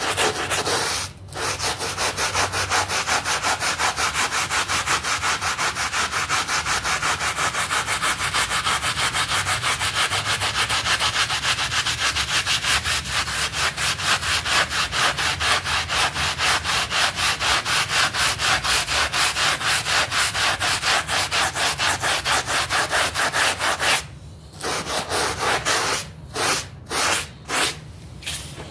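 A hand scrub brush scrubbing a wet, soapy shag rug in rapid, even back-and-forth strokes, with a short pause about a second in. The scrubbing stops near the end, leaving a few separate strokes.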